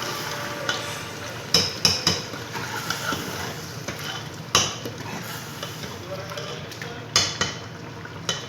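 A spoon stirring food in a cooking pot, knocking against the pot about six times at uneven intervals, over a steady frying sizzle.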